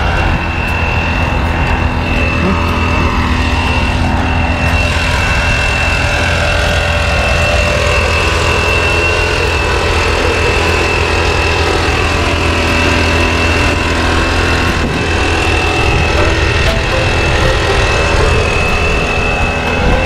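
A steady mechanical drone with a constant high whine, running evenly throughout, over a low rumble of wind on the microphone.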